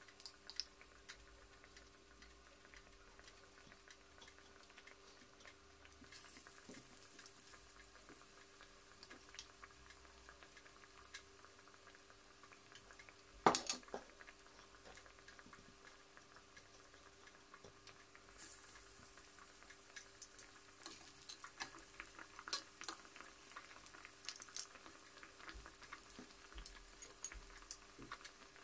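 Faint kitchen sounds: scattered light clinks of utensils and dishes over a low steady hum, with one sharper clink about halfway through.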